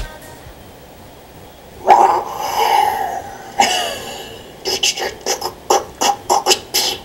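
A young woman imitating sound effects with her voice: a drawn-out vocal sound about two seconds in, then a quick run of short sputtering bursts, about four a second, in imitation of an engine starting.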